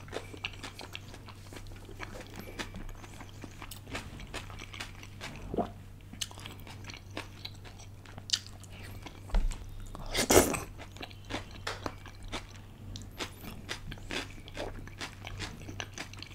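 Close-miked chewing of saucy stir-fried udon noodles eaten by hand: a steady run of short wet mouth clicks and smacks, with one louder burst about ten seconds in.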